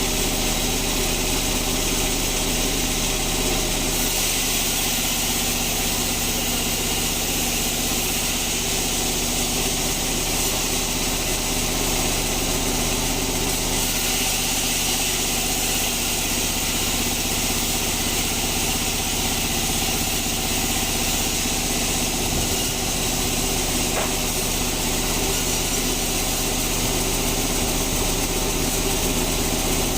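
Band sawmill machinery running steadily: an engine-like hum under a constant high hiss, with no change in load.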